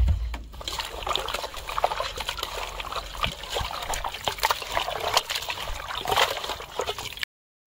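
Water splashing and trickling with many small irregular clicks as cut pieces of country chicken are washed by hand. It stops abruptly near the end.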